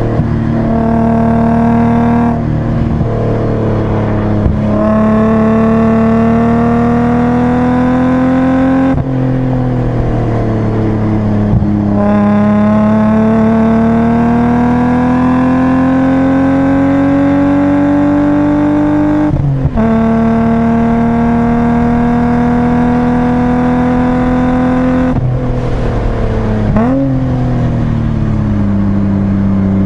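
BMW 328i's straight-six engine heard from inside the cabin, driven hard on track. Its pitch climbs and falls with throttle and speed and is broken several times by gear changes, with a quick rev blip on a downshift near the end.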